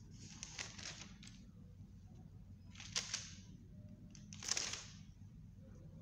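Thin Bible pages rustling as they are turned: three short rustles, about a second in, at three seconds and at four and a half seconds, over a faint steady room hum.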